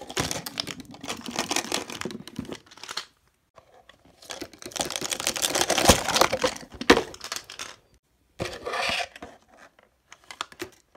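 Clear plastic shrink-wrap on a Mini Brands capsule ball being torn and crinkled by hand, in three rustling bursts, with a few light clicks near the end.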